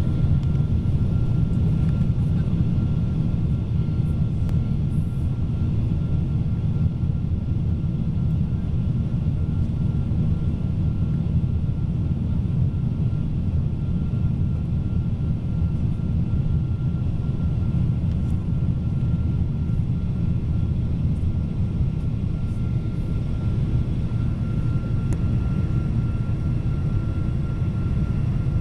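Steady cabin noise inside a Boeing 777-200ER on approach: a loud low rumble of engines and rushing air, with a thin steady whine running through it.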